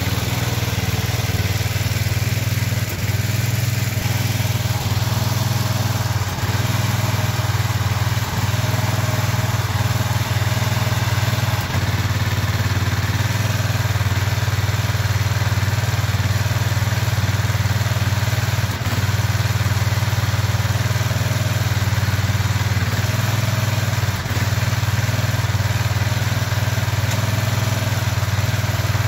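An engine idling steadily, with a low, even hum and no change in speed.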